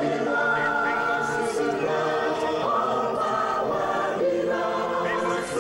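A large mixed choir of men's and women's voices singing together in long, held notes.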